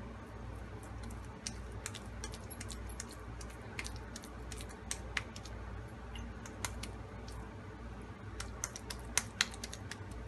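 Wet hands patting and shaping soft, papaya-tenderised raw beef mince into a kabab patty: scattered small clicks and smacks, thickest near the end, over a steady low hum.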